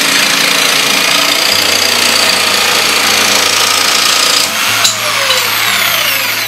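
Makita electric jigsaw cutting through a 12 mm board with a trimmed, reused blade whose unworn lower teeth cut freely; the tool cuts steadily, then about four and a half seconds in the cut finishes and the motor winds down with a falling whine.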